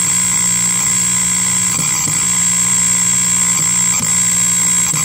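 Old Panasonic portable tape recorder's audio stage motorboating: a loud, steady, buzzing drone from its speaker, with a few faint clicks. The fault is one the repairer traces to a corroded connection at a capacitor on the circuit board, which he is betting is the problem.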